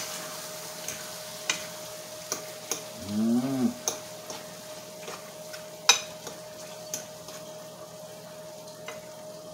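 A fork stirring ackee and tuna fish in a frying pan, tapping and scraping the pan about once a second over a faint sizzle, with a steady low hum underneath. About three seconds in there is a short hummed voice sound.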